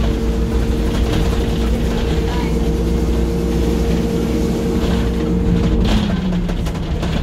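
Dennis Dart SLF single-deck bus heard from inside the passenger saloon while driving: a steady engine and drivetrain drone with a hum that drops in pitch about six seconds in.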